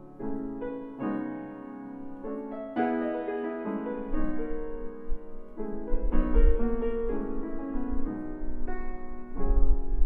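Chickering 109C grand piano, built 1897 with its original soundboard recrowned, being played: a slow passage of notes and chords, each struck and left ringing.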